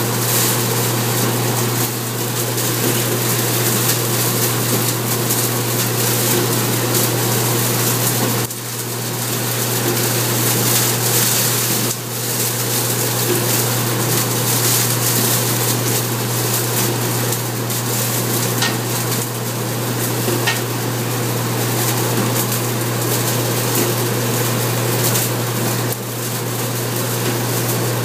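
A machine with a spinning spiked drum working through straw: a steady motor hum under a dense, crackling hiss of straw being torn, dipping briefly about three times.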